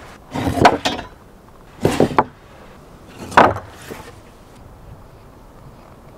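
Sawn-off pieces of timber knocking down onto a wooden workbench: a few separate sharp wooden knocks in the first four seconds.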